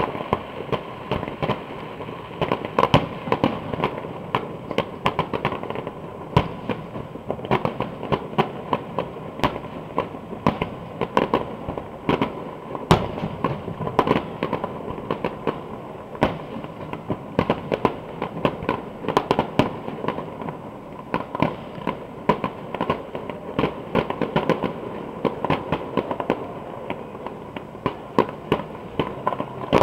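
Fireworks display: aerial shells bursting in a dense, irregular run of bangs and crackles, several a second, without a pause.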